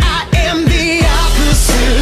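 Pop song with a sung vocal melody over a heavy beat and a deep sustained bass.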